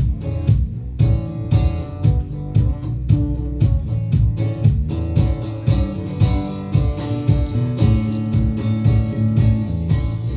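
Live country band playing: drums keep a steady beat of about two hits a second under bass and strummed guitar chords, with no clear singing in this stretch.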